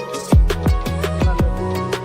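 Background music: an electronic track with deep falling bass kicks on a steady beat and sustained synth tones.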